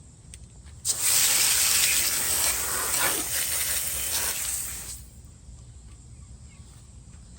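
Hose spray nozzle hissing in one burst of about four seconds as water is sprayed onto the robot lawnmower's body to rinse off soil and grass.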